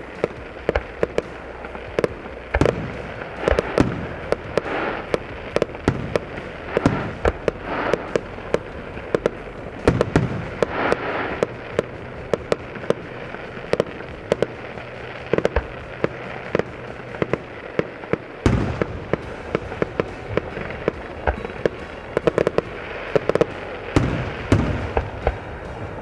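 Fireworks display: a dense, continuous string of sharp bangs and crackling bursts, several shells going off every second.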